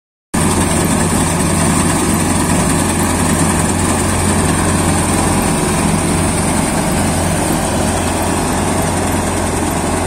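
Deutz-Fahr M 1202 E combine harvester running as it cuts grain: a loud, steady mechanical drone from its engine and threshing machinery.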